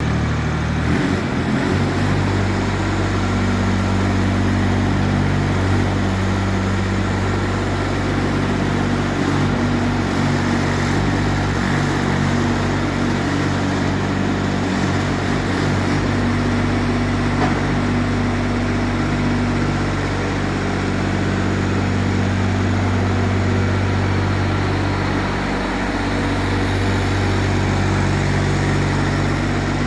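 Mini excavator's engine running steadily at a constant speed.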